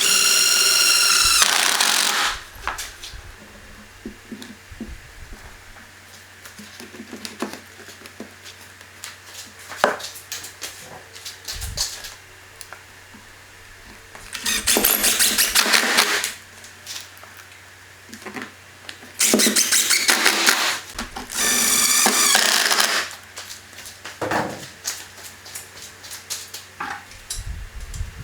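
A small power tool runs in four short bursts of about two seconds each, its motor whining at a steady pitch. Scattered knocks and clicks of handling come between the bursts.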